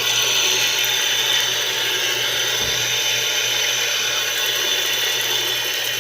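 Hot water running in a steady stream, a tap or pour filling a shave cup or wetting a shaving soap puck to bloom it.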